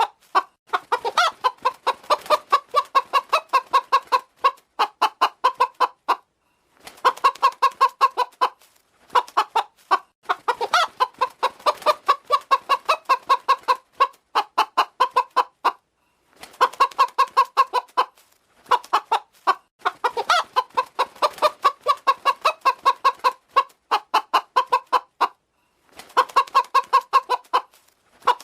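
A domestic hen clucking in rapid runs of several clucks a second, in bouts broken by short pauses.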